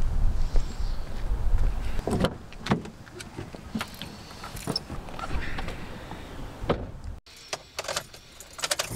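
Car door opened and someone climbing into the seat: a low rumble, then a string of clicks and knocks, the loudest a thud about two seconds in.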